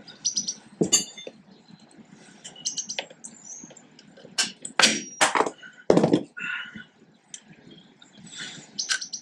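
Metal clinks and clanks of pliers and a brake-shoe return spring against the drum brake shoes and backplate of a 1955 Fordson Major tractor as the spring is worked onto the shoes. A few sharp clanks about halfway through are the loudest, one briefly ringing.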